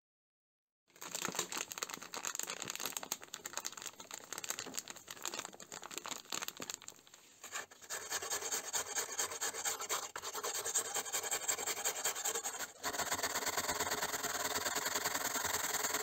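A small stiff brush scrubbing rusty metal knife liners in rapid back-and-forth strokes, first under a gritty white paste, then in a tray of liquid. The scrubbing starts about a second in, pauses briefly around seven seconds, and turns steadier and denser near thirteen seconds.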